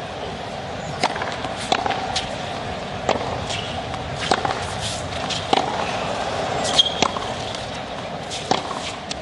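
Tennis rally on a hard court: a string of sharp racket-on-ball hits, roughly one every second or so, over the steady murmur of a large stadium crowd.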